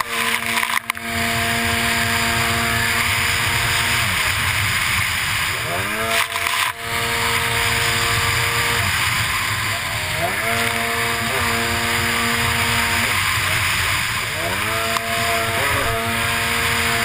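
A racing runabout jetski's engine, close up, revving hard and held at full throttle. About every four to five seconds it drops off and revs back up, over a steady hiss of spray and rushing water. There are short breaks in the sound about a second in and again after about six seconds.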